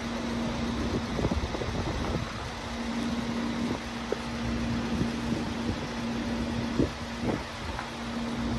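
Crane truck's engine running steadily, giving a constant hum, with a few short knocks around the load as it settles.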